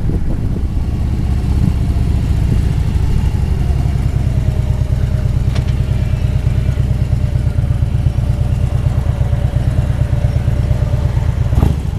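Harley-Davidson Road Glide's V-twin engine running steadily while the motorcycle is ridden along a highway, with a rapid, even exhaust pulse.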